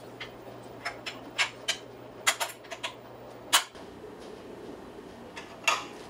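Light metallic clicks and taps, about ten of them at uneven intervals with the loudest a little past halfway. They come from a long steel straightedge and measuring tool being set against a Porsche 911 flat-six's cam chain housing to measure cam sprocket alignment.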